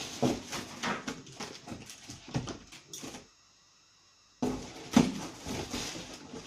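Products and packaging being handled and shifted about: a run of short knocks and rustles, broken by about a second of near silence halfway through, then more knocks with one loud knock near the end.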